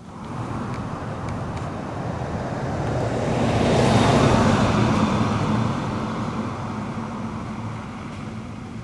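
A motor vehicle driving past with a low engine hum and tyre noise, growing louder to a peak about four seconds in and then fading away.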